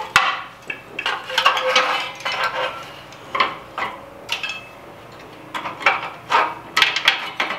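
Metal parts of an old oil burner clinking, knocking and scraping irregularly as its nozzle-and-electrode drawer assembly is worked loose and pulled from the air tube.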